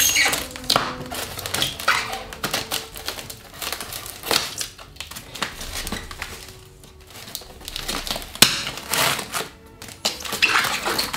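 A knife cutting packing tape on a polystyrene foam case: irregular scraping and rasping strokes against the foam, with plastic tape crinkling and one sharper snap about eight seconds in.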